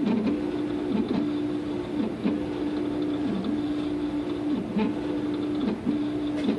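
Stratasys uPrint 3D printer at work: its motors give a steady whine as the print head moves, breaking with a short dip in pitch at each change of move, about once a second. Faint ticks are heard now and then.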